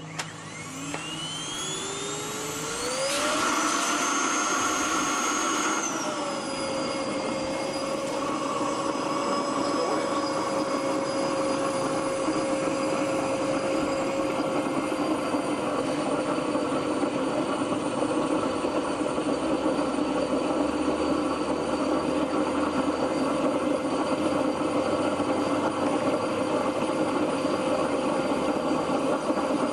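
Vacuum cleaner motor starting up and running: a whine that rises in pitch over the first few seconds to full speed, drops a little about six seconds in as it comes under load, then runs steadily at that lower pitch.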